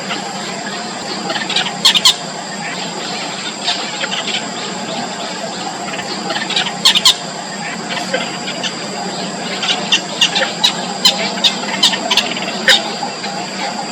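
Yellow bittern nestlings in the nest giving short, high squeaky calls, begging for food. The calls come in small clusters, with a quicker run of them near the end.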